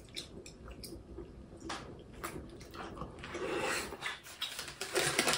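Eating sounds from a meal of cold kimchi noodle soup and dumplings: scattered soft clicks of utensils against dishes and wet mouth noises, with a longer wet noise about three and a half seconds in.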